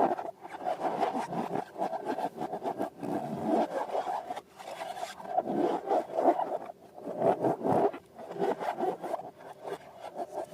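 Rubber balloons being handled and rubbed, giving squeaky rubbing sounds in irregular bursts with a few short pauses.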